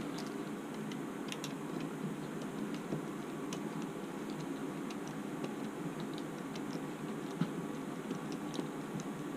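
Scattered light clicks and ticks of small screws and parts being handled while fitting a boom support on an RC helicopter tail boom, over a steady low hum.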